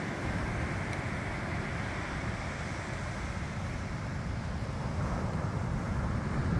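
Ocean surf washing steadily onto a sandy beach, with wind rumbling on the microphone; it grows a little louder near the end.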